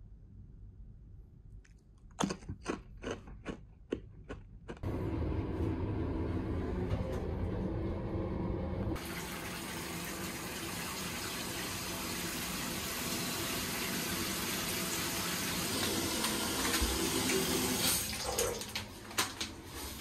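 A run of sharp clicks, then water pouring steadily from a bathtub mixer spout into a filling tub, starting about five seconds in and breaking off into a few knocks near the end.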